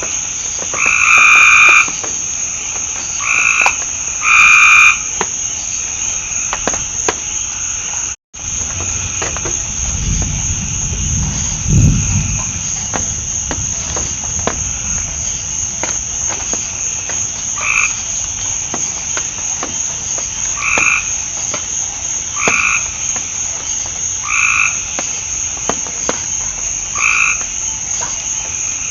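Frogs calling, short two-note calls repeated about every two seconds over a steady high-pitched insect drone. A low rumble comes about a third of the way in, and the sound cuts out for an instant just before it.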